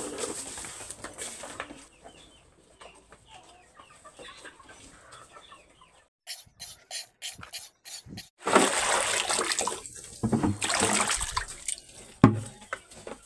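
Pig swill sloshing and pouring from a metal bucket into a stone trough, in two loud spells, with a sharp knock near the end.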